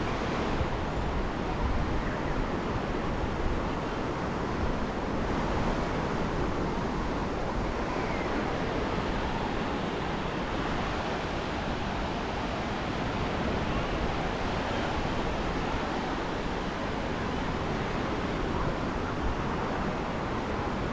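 Small surf waves breaking and washing up a sandy beach, a steady rush of water, with wind buffeting the microphone.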